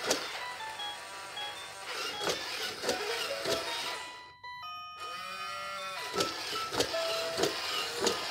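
A robot puppy toy walking, its small motor whirring and its legs clicking in an even rhythm about every 0.6 s, with short electronic beeps. About halfway through, the sound briefly drops out and a short electronic jingle of gliding tones plays.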